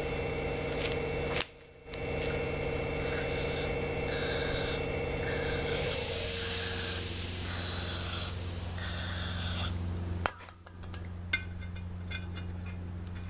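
Rubbing and scraping from hand work on engine parts over a steady machine hum, with short hissy bursts about three to six seconds in and a few light clicks near the end.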